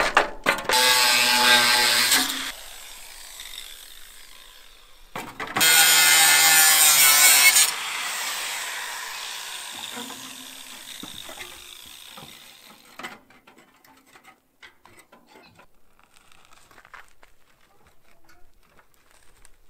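Angle grinder cutting the rusty sheet steel off an old trailer frame in two bursts of about two seconds each, a steady motor whine under a bright metal-cutting hiss. After the second cut the disc spins down over several seconds, and light clicks and handling noises follow.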